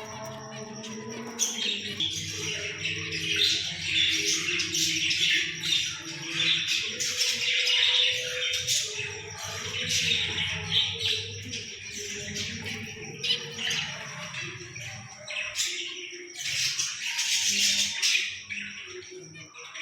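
Green parrot squawking and chirping over and over in rapid, harsh calls, over background music.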